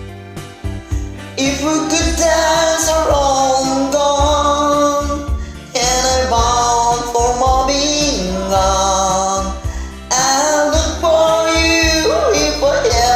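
Karaoke backing track with a voice singing a slow melody over it. The music drops low for about the first second, then the singing comes back in.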